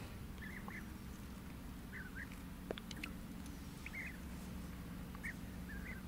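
Faint short animal calls, often in pairs, repeating every second or so over a low steady hum, with a single faint click near the middle.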